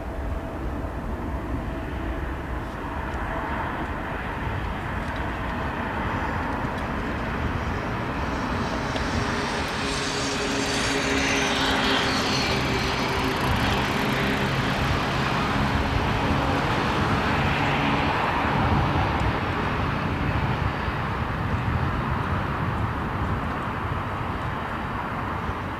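Boeing 777 freighter's twin GE90 turbofans at takeoff thrust through the takeoff roll and climb-out: a rushing jet noise with steady whining tones underneath. It swells to its loudest around the middle, then eases off as the aircraft climbs away.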